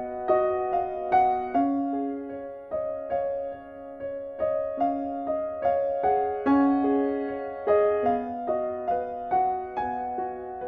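Background piano music: single notes and chords struck at an unhurried, even pace, each ringing and fading.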